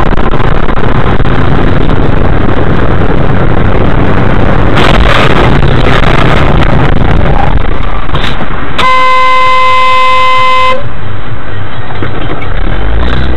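Loud, distorted vehicle noise picked up by a dash camera, swelling about five seconds in. A car horn sounds one steady, unbroken tone for about two seconds, starting about two-thirds of the way through.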